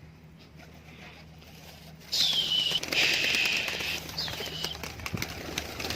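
Pigeons' wings flapping loudly close by, starting about two seconds in, with two short high notes that fall in pitch.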